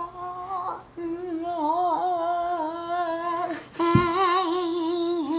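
A high voice humming long held notes, about three of them, with a slight wobble in pitch. A brief knock sounds about four seconds in.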